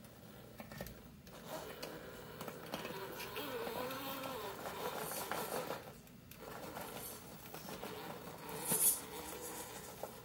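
RC rock crawler's 35-turn brushed motor whining through its steel spur gear, transmission and portal axles at a slow crawl, its pitch rising and falling with the throttle. The tyres scrape and knock on the wooden steps, with a dip about six seconds in and a sharp loud knock near the end.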